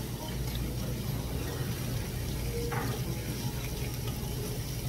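Steady hiss of pork and squid sizzling on a tabletop grill plate, over a low hum of room noise, with one short click about halfway through.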